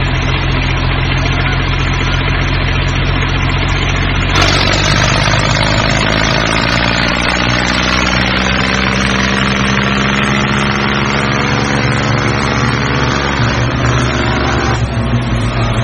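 Construction vehicle's engine running, with a steady low hum; about four seconds in it turns louder and brighter, its pitch drifting slowly, and it changes again near the end.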